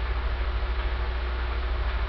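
Plasma glow-discharge apparatus running, with its DC power supply and vacuum pump on: a steady low hum with an even hiss over it.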